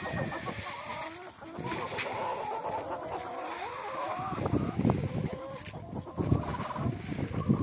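A flock of hens and roosters clucking steadily as they feed on scattered wheat, with irregular bursts of low rumbling noise, strongest in the second half.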